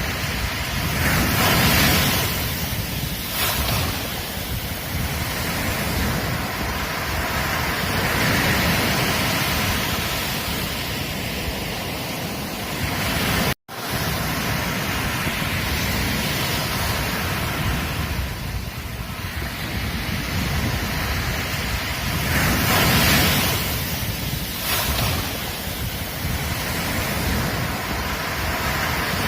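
Ocean surf washing onto a beach: a continuous rush of breaking waves that swells and eases every several seconds, with wind rumbling on the microphone. The sound cuts out for an instant about halfway through.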